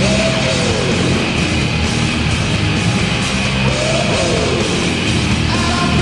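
Loud rock music playing steadily, with a sliding note that falls in pitch at the start and again about three and a half seconds later.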